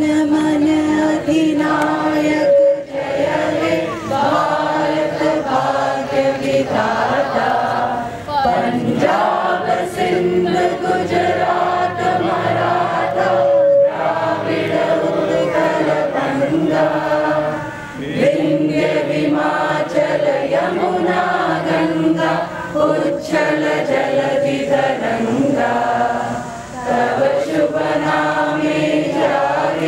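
A group of voices singing a song together in long phrases, with short breaks between them.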